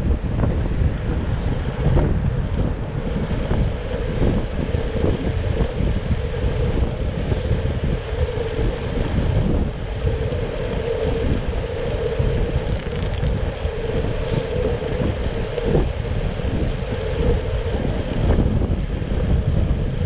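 Wind buffeting the microphone while cycling through city traffic, with the rumble of passing vehicles and a steady hum through the middle.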